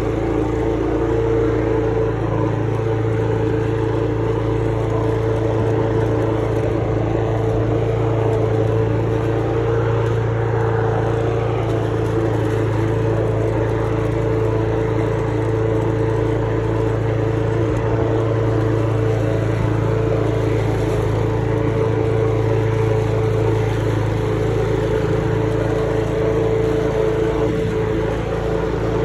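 Lawn mower engine running steadily while mowing, its pitch and loudness holding constant.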